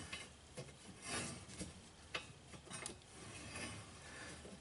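Faint metal-on-metal scraping with a few light clicks, as a thin steel rod is worked against a snowblower auger shaft to find the shear bolt hole.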